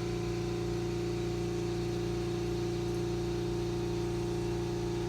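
A steady machine hum at one constant pitch, from a motor switched on about a second earlier.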